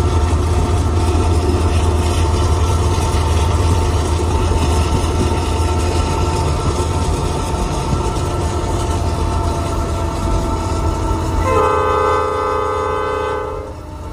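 Steady low road rumble of a car pacing a diesel freight train, with faint steady horn tones in the background. About three-quarters of the way in, the lead locomotive's multi-note horn sounds loudly for about two seconds and then cuts off.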